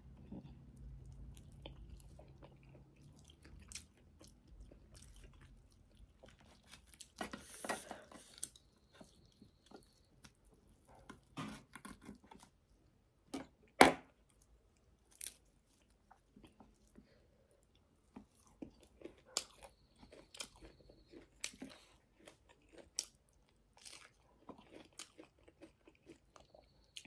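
Close-miked chewing and mouth clicks of someone eating a ramen and sausage meal. The clicks are irregular and mostly soft, with a few longer noisy stretches and one sharp click about fourteen seconds in.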